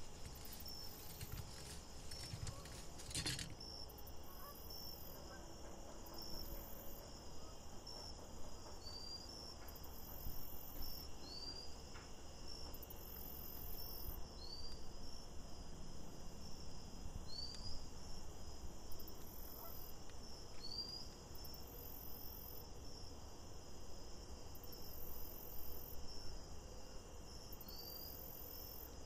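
Faint high-pitched chirping squeaks, each rising briefly in pitch and repeating evenly about every three seconds, over a steady low hiss.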